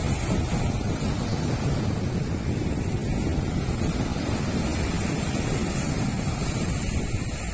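Wind buffeting the microphone over small waves breaking and washing up on a sandy shore. It is a steady rumbling rush with no pauses.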